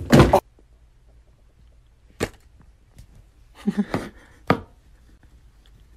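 A loud thump right at the start, then a sharp knock about two seconds in, a short scuffle of small noises near four seconds, and another sharp knock soon after.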